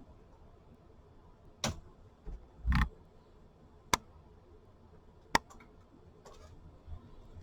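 A few sharp, separate clicks with a duller knock among them, on a desk near the microphone.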